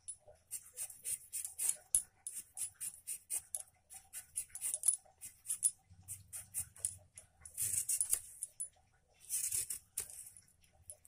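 A carrot being peeled against a boti blade: its skin scraped off in quick short strokes, about three or four a second, then two longer scrapes near the end.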